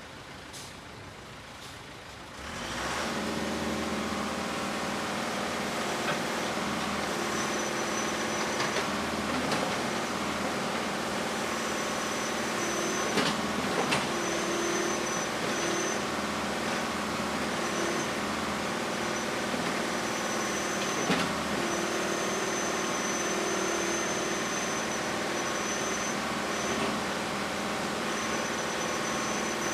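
Heavy diesel construction machinery running: an engine that comes in loud about two and a half seconds in and then runs steadily, with a thin high whine that comes and goes. A few sharp metallic knocks and clanks sound over it.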